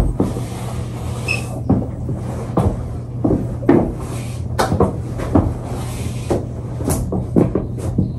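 Irregular knocks and scuffs of feet on a hard floor as someone dances, over a steady low hum.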